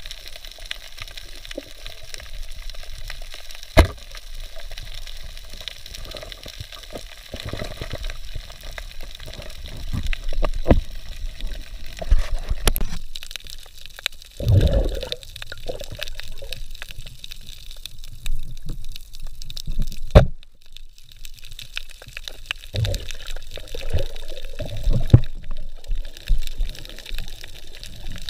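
Underwater sound picked up by the diver's camera: a steady wash of water with gurgling, bubbling surges now and then, and three sharp clicks or knocks, about 4, 13 and 20 seconds in.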